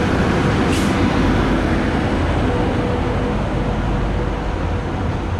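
Electric locomotive standing at the platform, its cooling blowers and equipment running with a steady hum over a low rumble. A short hiss sounds about a second in.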